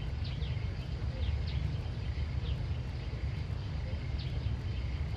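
Outdoor country ambience: a steady low rumble with short, high, falling chirps from small birds every second or so.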